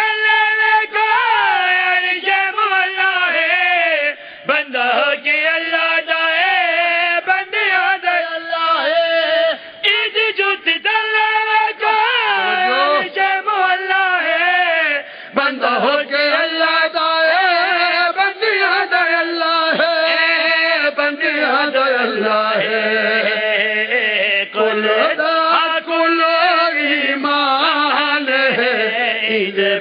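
Men's voices chanting a devotional Shia lament in a sung, melismatic style: long held notes that waver and glide, with only short breaths between phrases.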